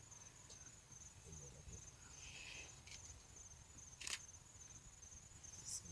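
Faint insect chirping, a steady high-pitched pulsing trill, with a single sharp click about four seconds in.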